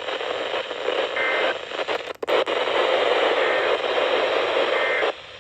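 Radio receiver hiss and static interference, with faint short two-tone data chirps of the EAS end-of-message code barely showing through the noise, and a brief dropout about two seconds in.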